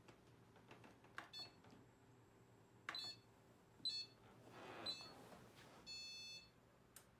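Treadmill console beeping: four short electronic beeps spaced about a second apart, then a longer beep near the end.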